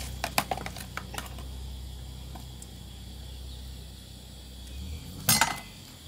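Kitchen utensils clinking and knocking against dishes: a few light clicks at first, then a sharper cluster of clinks about five seconds in, over a low steady hum.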